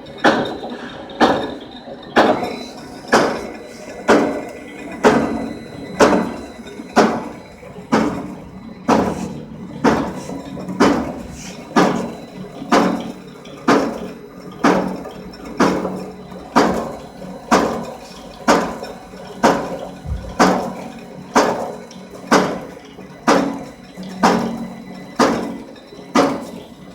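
A cutting machine running in a steady rhythm, each stroke a sharp knock with a brief ringing decay, about three strokes every two seconds.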